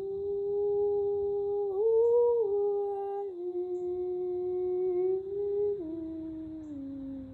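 A woman's voice humming wordless, long held notes that move in slow steps: up a little about two seconds in, back down, then lower in steps near the end.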